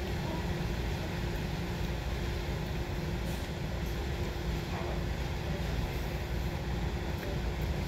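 A steady low rumble with a constant hum running through it, unchanging throughout.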